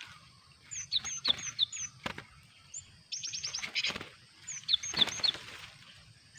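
Cinereous tit (gelatik batu) calling: short, high, downward-slurred chirps in little groups of two or three, with a rapid chattering run about three seconds in. A few brief knocks or flutters come between them.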